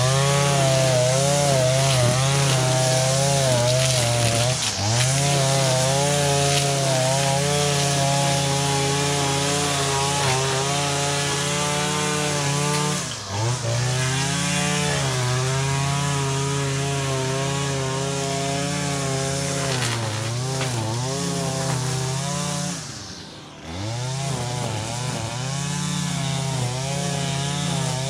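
Small two-stroke string trimmer running at working speed, its engine note wavering as the throttle is worked, with brief drops in speed about 5, 13, 20 and 23 seconds in.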